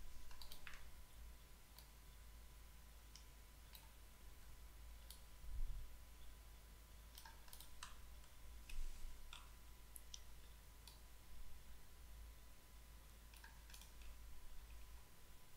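Faint, irregular clicks of a computer mouse, about a dozen scattered through, over a low steady hum.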